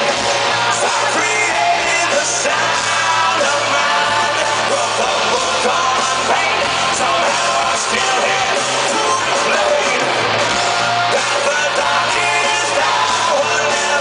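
Live rock band playing loud, with electric guitar, drums and a singer singing into a microphone, heard from within the audience.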